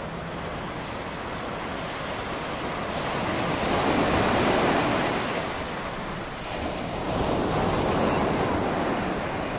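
Surf breaking and washing up a sandy beach, swelling louder twice as waves come in, about four and eight seconds in.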